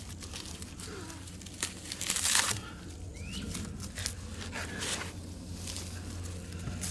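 Dry grass and kindling smouldering on hot campfire coals, giving irregular small crackles, with a louder rustle about two seconds in; the smoking tinder is close to catching flame.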